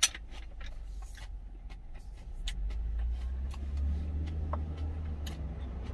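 A vehicle engine rumbling low and steadily, growing louder about halfway through, with scattered light clicks of eating utensils against a food container and one sharp click at the start.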